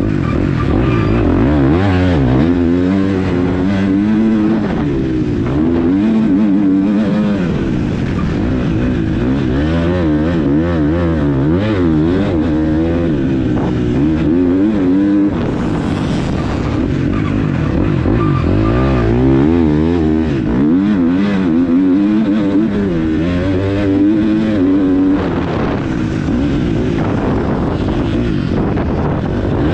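Motocross bike's engine heard from on board, running hard and rising and falling in pitch again and again as the rider accelerates, shifts and backs off around the track.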